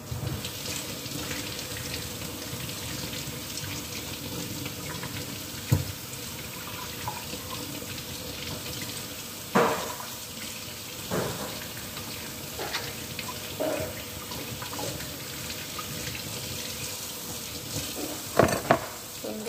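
Kitchen sink tap turned on and running steadily as a whole fish is rinsed under it, with a few sharp knocks as it is handled in the sink, the loudest about six seconds in and a close pair near the end.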